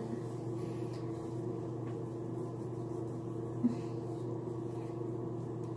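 Steady low mechanical hum in the room, with one short faint blip a little over three and a half seconds in.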